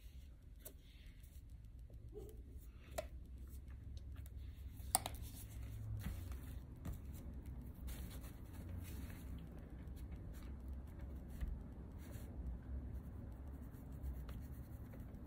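Faint scratching and light taps of a paintbrush mixing paint on a palette, with scattered small clicks, the sharpest about five seconds in, over a low steady hum.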